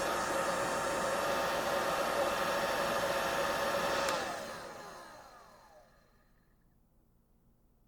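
Blow dryer running steadily with a whine over the rush of air, then switched off about four seconds in. Its whine falls in pitch as the fan spins down and fades out over the next two seconds.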